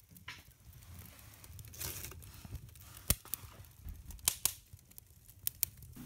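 Newspaper, cardboard and kindling catching alight in an open wood stove firebox: a crackling hiss with several sharp pops, the loudest about three seconds in.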